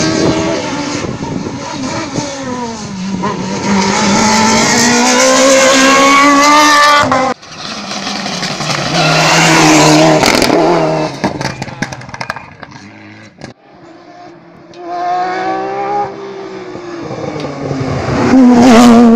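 Rally cars at full throttle, one after another, their engine notes climbing and dropping through gear changes. A Mitsubishi Lancer Evolution's turbocharged four-cylinder passes in the middle, and a Porsche 911's flat-six builds to the loudest point near the end. The sound breaks off abruptly at edit cuts.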